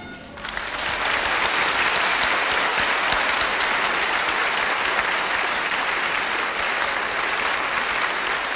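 Studio audience applauding, breaking out about half a second in as the music stops and going on steadily.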